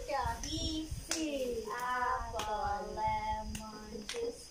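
Several people's voices talking and chanting in a sing-song way, broken by a few sharp hand claps.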